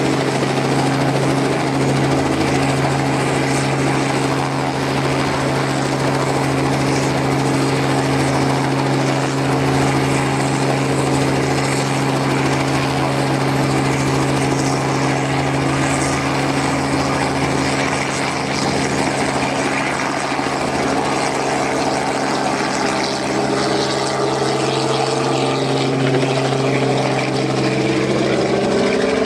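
Robinson R44 helicopter running on the ground, its piston engine and turning rotor making a loud, steady drone. Near the end the pitch bends as the helicopter lifts off and flies away.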